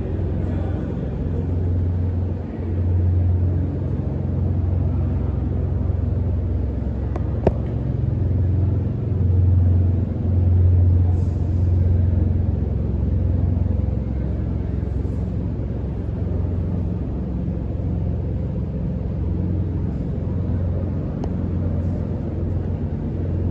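Snack extruder production line machinery running: a steady low electric-motor hum and rumble that swells and eases, with one sharp click about seven and a half seconds in.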